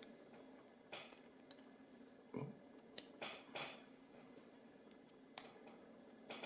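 Faint, scattered metallic clicks and light scrapes as a brass padlock with a steel shackle is handled with a shim still in the shackle. About half a dozen small ticks, none of them loud.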